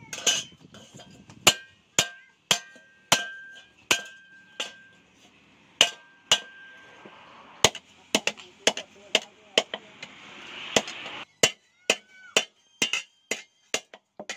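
Hand hammer striking steel on an anvil in an uneven series of blows, some leaving a short metallic ring. A hiss builds and then stops suddenly about eleven seconds in.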